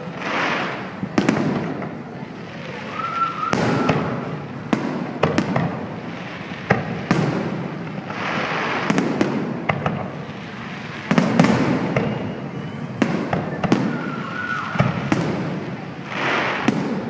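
Fireworks display: repeated sharp bangs and crackling bursts, irregularly spaced, over a continuous rush of overlapping explosions.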